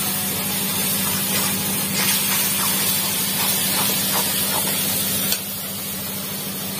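Hot oil sizzling as food fries in an iron kadai over a wood-fired clay stove, with a steady low hum underneath and a few light clicks. The level drops suddenly about five seconds in.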